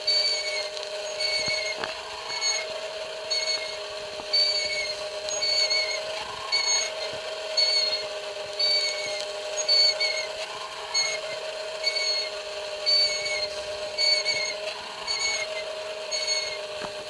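Rotisserie spit turning over charcoal, its motor giving a steady hum with a short high squeak repeating evenly about every three-quarters of a second.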